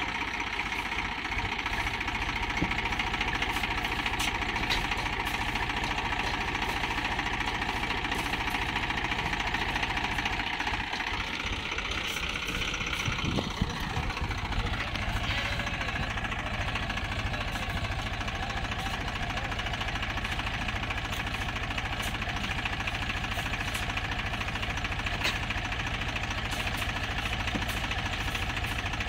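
Swaraj tractor's diesel engine running steadily under heavy load, pulling a loaded trailer with its wheels sunk in deep sand. About halfway through the engine note rises and falls once, with a single sharp knock.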